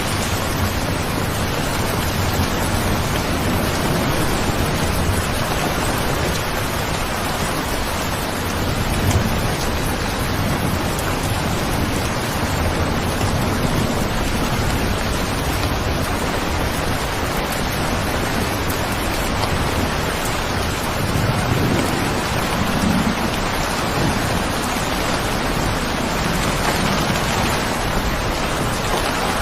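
Steady heavy rain, a dense even hiss of falling rain with no break.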